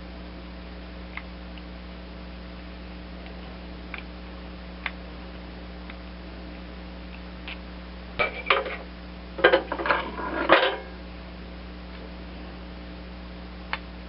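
Small metal hand tools and carburetor parts clinking and clattering as they are handled: a few isolated light ticks, then a burst of metallic clatter about eight to eleven seconds in, over a faint steady electrical hum.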